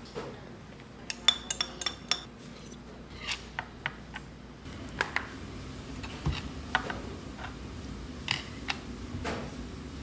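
Dishes and metal utensils clinking and clattering: irregular sharp clinks, a few ringing briefly, the thickest cluster about a second in.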